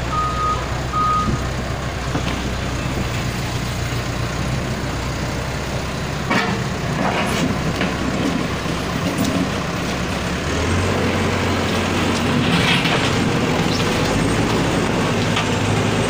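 Diesel engine of a backhoe loader running close by, its reversing alarm beeping twice at the start. About ten seconds in, the engine note steps up and holds louder as the machine works the debris, with a few knocks and clatters of wreckage.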